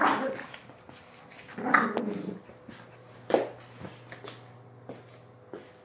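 Dogs growling in a play fight over a tug toy. The growls come in short bursts: one at the start, one about two seconds in, a sharper short one a little after three seconds, then a few faint ones.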